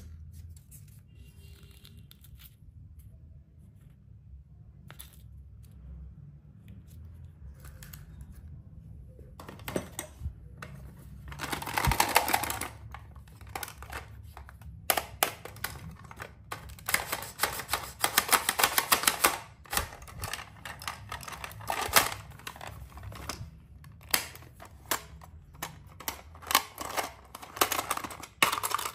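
Clear plastic packaging crinkling and a small hard-plastic toy case clicking and rattling as hands turn it over and unwrap it. It is mostly quiet for the first several seconds, then comes in dense bursts of crackling and quick clicks from about ten seconds in, loudest around twelve seconds.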